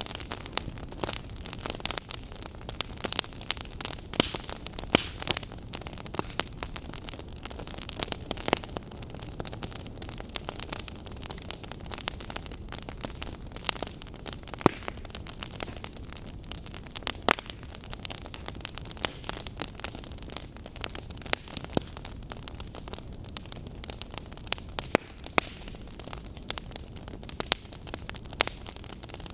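Campfire burning: wood crackling with irregular sharp pops over a steady hiss and low rumble of the flames.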